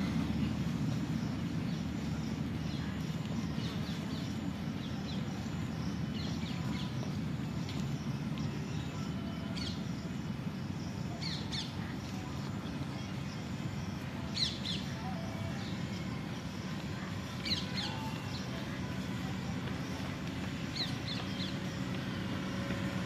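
Outdoor roadside ambience: a steady low rumble, with short bird calls every couple of seconds from about ten seconds in.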